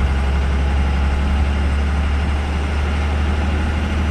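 12-valve Cummins inline-six turbo diesel running steadily under load in fourth gear, heard from inside the cab, with road noise. It is a low, even drone while the truck gains speed only slowly.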